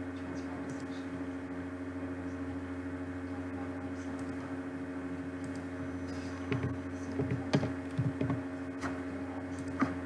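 Steady low electrical hum with several fixed tones. Short computer mouse clicks and keystrokes come in a cluster from about six and a half to eight and a half seconds in, with one more click near the end, as a value is entered in the software.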